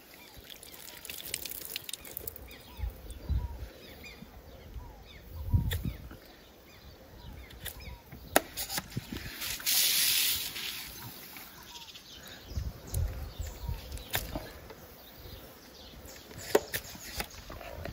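Hoof knife paring the sole of a cow's claw, with scattered small scraping clicks and a few dull knocks, as loose sole is cut away over an infected lesion near the toe. About ten seconds in, a hiss lasting about a second as water is squirted onto the claw.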